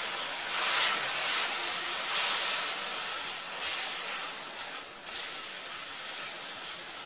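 Water hitting hot butter, oil and fried onion-spice masala in a metal kadhai, sizzling and hissing as a silicone spatula stirs it. The hiss fades gradually, swelling again briefly about half a second in and around five seconds in.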